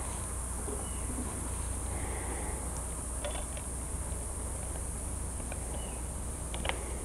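Steady high-pitched background hiss with a low hum under it, and a few faint clicks about three seconds in and near the end as pliers and a wire push rod are handled at the wing.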